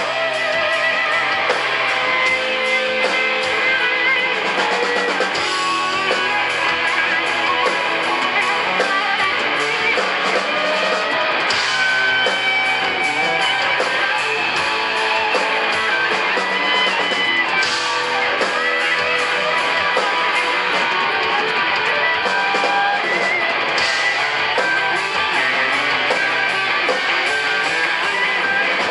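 A live rock band playing: electric guitars over a drum kit keeping a steady beat, with a crash about every six seconds.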